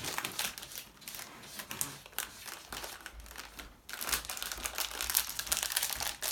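Packaging crinkling and rustling as a small wrapped minifigure is worked open by hand, with a brief pause part-way and then louder crinkling.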